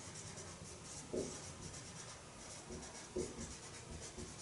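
Faint writing strokes on a writing surface as a diagram is being labelled, with short scratches about a second in and again about three seconds in.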